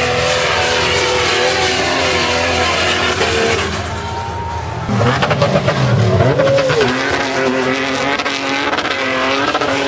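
Off-road SUV engines revving hard, pitch rising and falling as the vehicles power through soft sand. The sound changes abruptly twice, about four and five seconds in.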